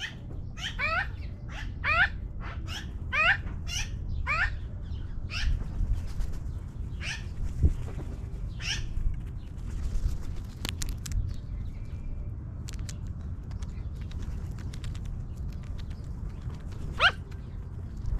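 Magpies calling: a quick run of about eight calls in the first few seconds, then a few scattered single calls, the last one near the end, over a steady low background rumble.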